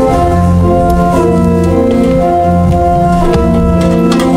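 Organ playing offertory music: slow, held chords that change about once a second.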